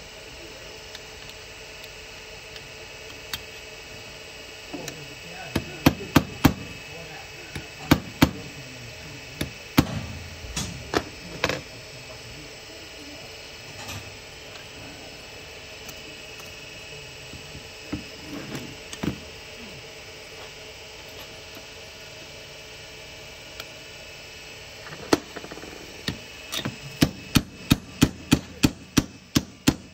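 Hammer striking a steel pin punch to drive a pin out of a PCC streetcar brush holder: sharp metal-on-metal taps, a scattered handful in the first half, then a quick run of about three strikes a second near the end.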